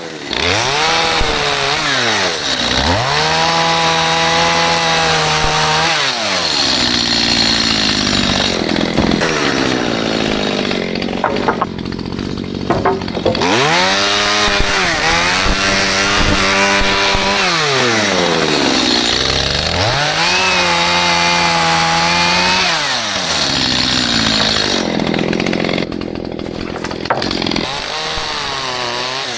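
Stihl MS211 two-stroke chainsaw cutting down tree stumps. It is throttled up to full revs for each cut, holds there for a few seconds, and drops back toward idle between cuts, several times over.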